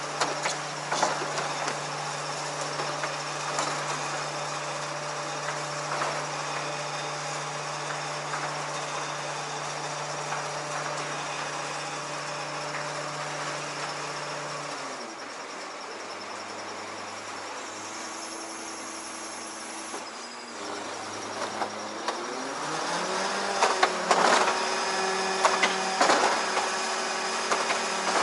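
A 38 m truck-mounted ladder lift running as its carriage travels on the extended ladder, with a steady mechanical hum. The hum drops lower and quieter about halfway through, then rises in pitch and grows louder near the end, with a few knocks and clicks.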